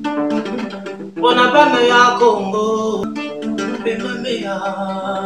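Cutaway acoustic-electric guitar fingerpicked in a melodic run of single notes, with a voice singing along for a moment about a second in.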